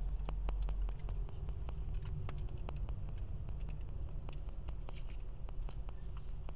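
Car interior noise while driving: a steady low rumble of engine and tyres, with many sharp clicks scattered irregularly through it, several a second.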